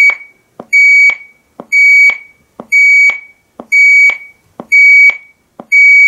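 Emerson RK5000 kitchen timer radio's countdown alarm going off as the timer reaches zero: a loud, high-pitched electronic beep about half a second long, repeating once a second, with a short click between beeps.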